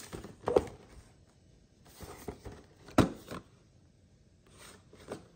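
Cardboard model-kit box being handled and turned over in the hands: irregular scraping and rustling of the box against fingers and table, with two sharp taps, about half a second in and about three seconds in.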